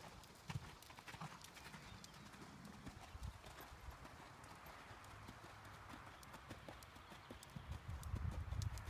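Horse's hooves thudding on a sand arena at a canter, growing louder near the end.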